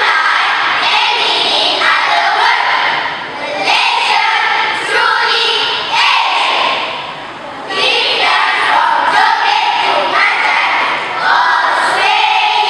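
Choral speaking: a large group of schoolchildren's voices chanting lines loudly in unison, in phrases of a second or two with brief breaks between.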